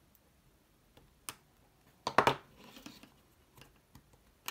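Small metal clicks and taps from needle-nose pliers and small parts on the sheet-metal mechanism plate of a Commodore Datasette cassette drive. A few scattered clicks, the loudest a short clatter about two seconds in.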